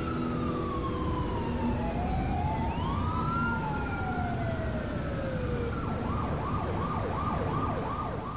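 Siren wails over a steady hiss: one long, slowly falling wail with other wails rising across it, then a quick repeating up-and-down yelp about three times a second, fading near the end.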